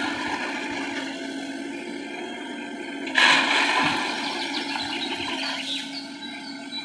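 A machine's engine running steadily, with a loud rushing noise starting suddenly about three seconds in and fading away.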